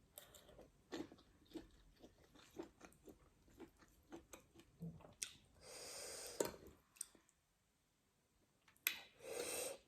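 Close-up chewing of a person eating, with soft wet mouth clicks about twice a second. A longer breathy sound comes about six seconds in and again near the end, after a short lull.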